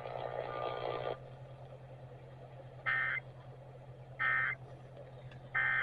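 Emergency Alert System end-of-message data signal: three short, identical buzzy digital bursts, each about a third of a second long and a little over a second apart, closing the severe thunderstorm warning broadcast. It is preceded by a second of radio hiss that cuts off, over a steady low hum.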